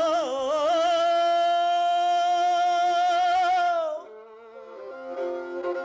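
Kazakh folk song: a singer holds one long wavering note, which breaks off about four seconds in, leaving a quieter steady instrumental accompaniment before the voice returns near the end.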